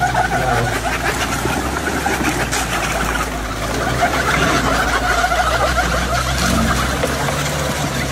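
Suzuki Jimny on rubber track conversion units crawling slowly through a muddy puddle: a low, steady engine note under the churning of the tracks and water sloshing in the mud.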